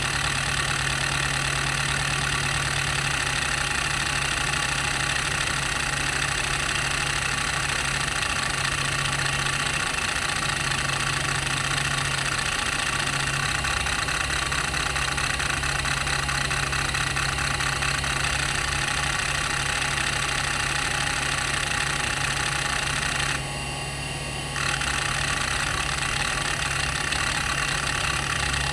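Conner CP30174E 170MB hard drive's head actuator seeking rapidly and continuously: a dense buzzing chatter of seeks over the steady hum of the spinning platters. The seeking stops for about a second near the end, leaving only the hum, then resumes. It is a healthy drive with good bearings.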